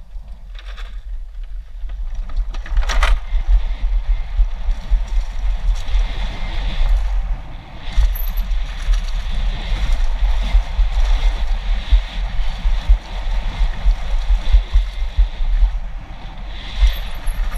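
Downhill mountain bike ridden fast over a dry dirt trail, heard from a helmet-mounted camera. Heavy wind buffeting on the microphone sits over the hiss and clatter of the tyres and bike over the bumps, with a sharp knock about three seconds in.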